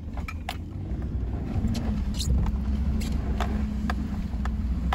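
Pickup truck engine heard from inside the cab, revving under load as it tows a second truck out of snow on a tow strap. It gets louder over the first couple of seconds, then holds a steady hard pull, with scattered sharp clicks and cracks over the top.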